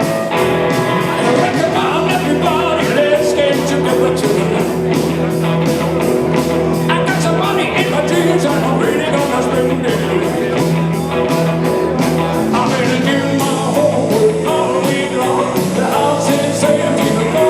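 Band playing 1950s-style rock and roll, with drums keeping a steady beat under guitar and a moving melody line.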